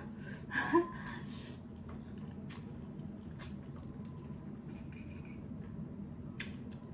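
A person slurping and chewing noodles close to the microphone: a noisy slurp about a second in, then scattered short wet mouth clicks and smacks.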